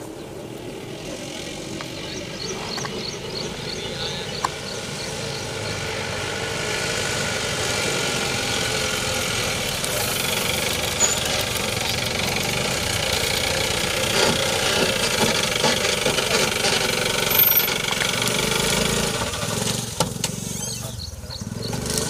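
A motor vehicle's engine running at a steady speed, growing louder over the first several seconds, holding, then dropping off sharply near the end.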